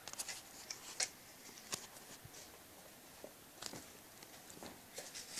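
Faint scattered clicks and scuffs from a handheld phone camera being handled and brushed against a concrete block wall, over a low hiss.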